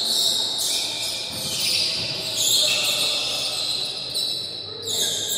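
Volleyball practice: balls being struck and bouncing on the court, several impacts over a few seconds.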